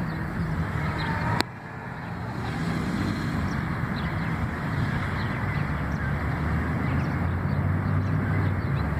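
Steady low rumble of road traffic with faint, scattered bird chirps above it. A sharp click about a second and a half in is followed by a brief dip before the rumble builds again.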